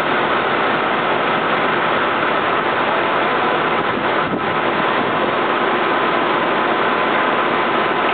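American Machine & Design extruder running: a steady, even machine noise with a faint thin whine held throughout.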